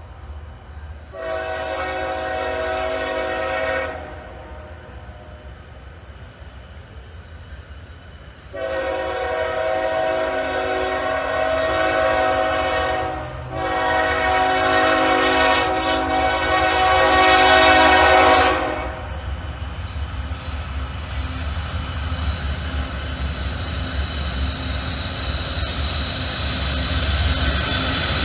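Freight locomotive's multi-note air horn sounding three long blasts, the last two with only a brief break between them. After the horn stops, the rumble of the diesel locomotives and their wheels on the rails grows steadily louder as the train approaches.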